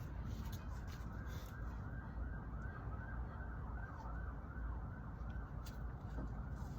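A siren yelping in quick rising-and-falling sweeps, about three a second, faint over a steady low rumble; it comes in about a second in and fades out near the end.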